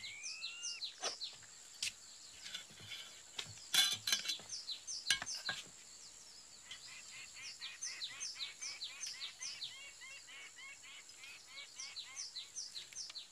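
Tropical bird ambience: many short high chirps, each sweeping downward, repeated a few times a second and thickest in the second half. A few sharp knocks and clicks sound over it, the loudest about four seconds in.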